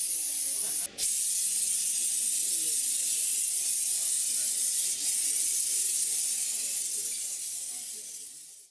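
Steady hiss of rain falling, with a faint murmur of voices underneath. The sound drops out briefly about a second in and fades away near the end.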